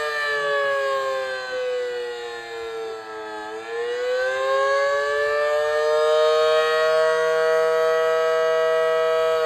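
Federal Signal Model 5BT civil defense siren sounding the attack tone, a loud wail. Its two-note chord slides down to a low point about three seconds in, then winds back up and holds near the top.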